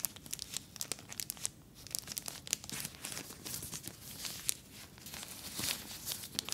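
A tampon's thin, soft plastic wrapper being crinkled and torn open by hand, with irregular crackling and tearing.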